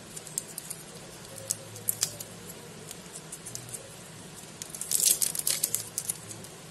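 Thin clear plastic protective film crinkling and crackling as it is peeled off a new smartwatch, with scattered small clicks and rustles of handling before a dense burst of crackling about five seconds in.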